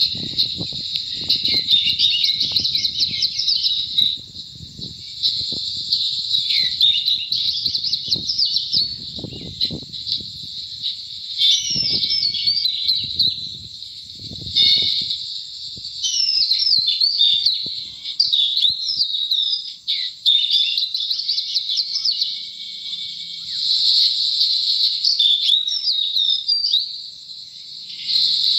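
Small birds chirping and singing continuously in quick, overlapping calls. Irregular low rumbles come and go through the first half.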